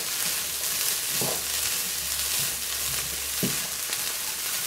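Diced potatoes and crumbled turkey sausage sizzling in a nonstick skillet as a spatula stirs and scrapes through them. There is a steady hiss, with a couple of short knocks from the spatula against the pan.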